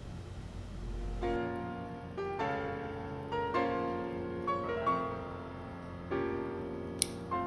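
Background piano music, single notes and chords starting about a second in after a low hum, with a short click near the end.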